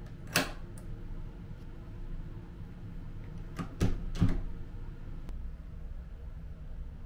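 A door's metal thumb-turn lock clicks once, about half a second in. Around four seconds in, the lever handle and latch give three quick sharp clicks. A steady low hum runs underneath.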